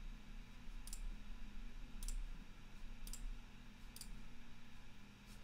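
Five single computer mouse clicks spaced about a second apart, over a faint low hum.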